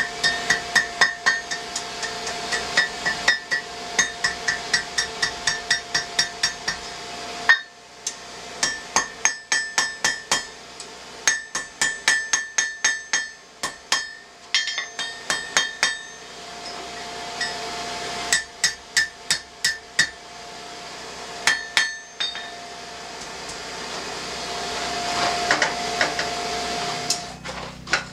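Hand hammer striking hot steel on an anvil, forging the hanger hook of a fire poker: runs of quick ringing blows, several a second, broken by short pauses, over a steady hum.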